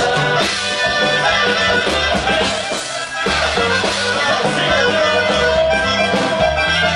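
Norteño band playing an instrumental stretch of a huapango, with plucked strings and bass over a steady drum beat, and held notes that fit an accordion.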